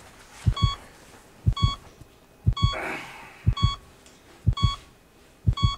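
Heart-rate monitor beeping steadily about once a second, each beep paired with a double heartbeat thump.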